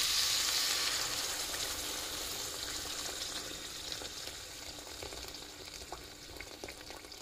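Sizzling of vegetables frying in a hot pan, dying away steadily as boiling water is poured in over them, with scattered crackles in the second half.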